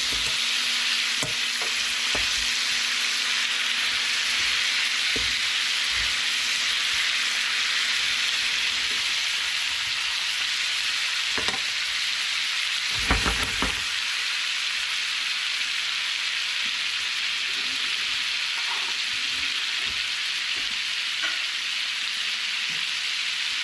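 Cobia fillet frying in butter in a pan on medium-high heat: a steady sizzling hiss. A brief clatter of knocks a little past halfway is the loudest moment.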